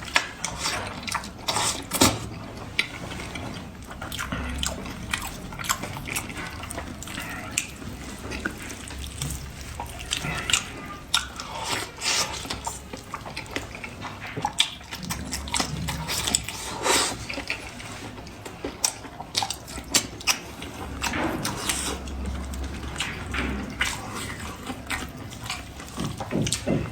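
Close-miked eating of spiced sheep's head meat: wet chewing and biting, with irregular sharp clicks and smacks throughout.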